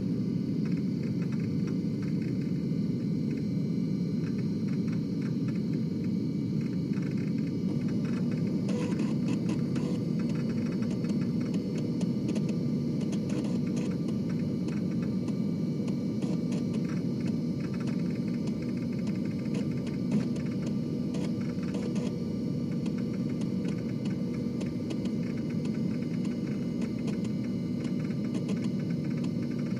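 Floppy disk drive running: a steady low whir from the spinning disk, with faint, irregular ticks and clicks of the read/write head stepping. The clicks grow more frequent from about nine seconds in.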